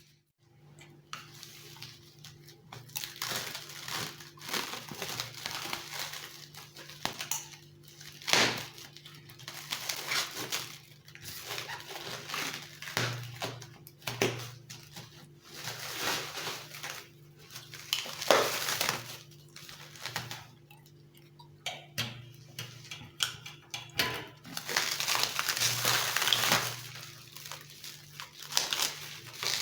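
A package being unboxed by hand: plastic wrapping and packaging crinkling and tearing, with irregular knocks and clicks as cardboard and hard parts are handled. A few louder knocks stand out, and a low steady hum runs underneath.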